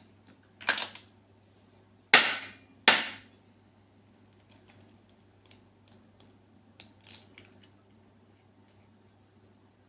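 Eggs being cracked against the rim of a bowl: three sharp knocks in the first three seconds, the last two loudest, then lighter clicks of shell being handled as the yolks are separated.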